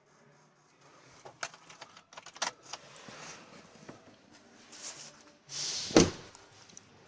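Clicks, rattles and knocks of hands working in and around a vehicle, ending in a rush of noise and one loud thud about six seconds in.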